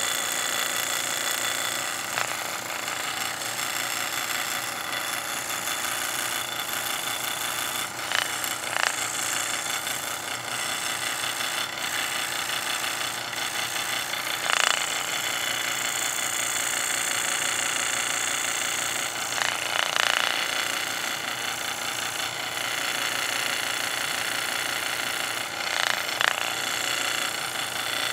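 An old Delta scroll saw running and cutting wood with a spiral blade, the blade chattering steadily up and down through a stack of three thin boards. A few brief louder rasps come as the blade bites harder.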